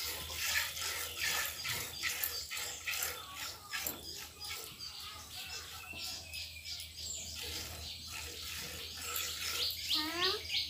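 Cow being milked by hand into a steel bowl: rhythmic squirts of milk hitting the bowl, about two to three a second. A bird calls in a quick series of chirps near the end.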